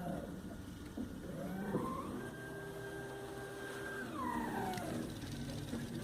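Stepper motors salvaged from a copier whining as they drive the axes of a homemade Arduino CNC plotting with a pen. The pitch glides up and down as the motors speed up and slow down, holding a steady tone for a couple of seconds in the middle.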